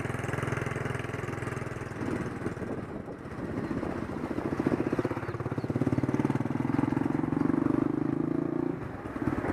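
Motorcycle engine running under way, heard from the pillion seat, getting louder from about four seconds in and easing off near the end.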